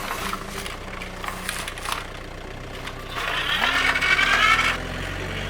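Truck engine running as the truck pulls away, a steady low hum with a rise in pitch about three and a half seconds in. A louder wavering higher sound runs for about a second and a half, starting just past three seconds.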